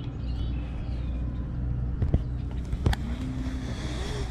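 Steady low motor hum from a bass boat, with two sharp clicks about two and three seconds in.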